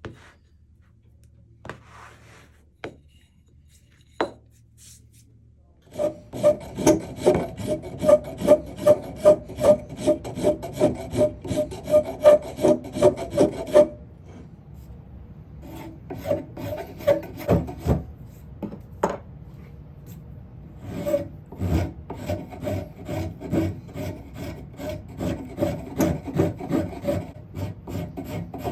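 Hand filing of wood: quick, even back-and-forth strokes at about two a second. They start about a fifth of the way in, pause briefly past the halfway point, and pick up again for the rest.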